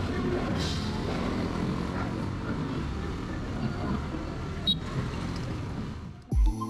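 Outdoor street noise with a steady low vehicle engine rumble. Near the end it cuts off suddenly and loud music with a heavy bass beat begins.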